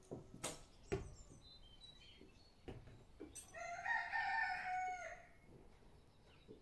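A rooster crowing once, a single drawn-out call of about a second and a half starting around three and a half seconds in. A few sharp knocks come in the first second.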